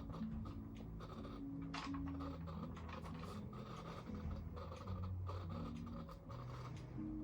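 Canon EF 24-105mm f/4L IS USM lens's image stabilizer making an abnormal low humming, its tone jumping between pitches every fraction of a second, over scratchy handling of the zoom ring. The noise comes on when the zoom ring is touched and not with IS switched off, which the owner suspects is a stabilizer fault.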